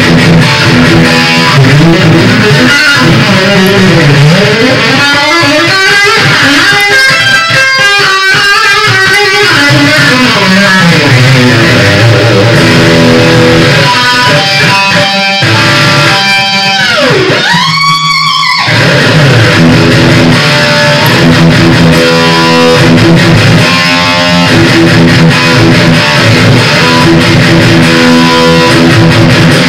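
Electric guitar played solo through an amplifier: a run of riffs and fast note runs, with a note that glides down and back up about seventeen seconds in.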